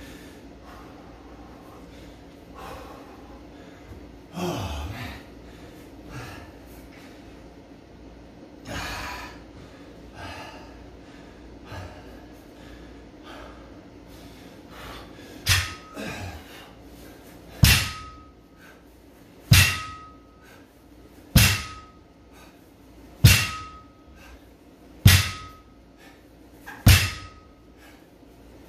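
Heavy breathing of a man catching his breath, with a couple of soft thuds. About halfway through, a 135-lb barbell starts being set down on the rubber-matted floor for deadlift reps: a thud with a short metallic ring from the plates and bar, about once every two seconds, seven times.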